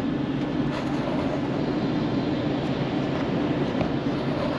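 Ford Transit Connect van idling in stationary traffic, a steady low hum heard from inside the cab.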